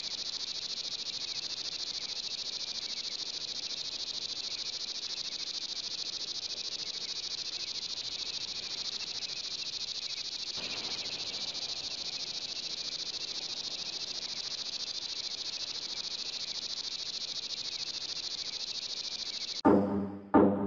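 Steady, high-pitched chorus of night insects chirring without a break. About a second before the end, loud drum hits of music cut in over it.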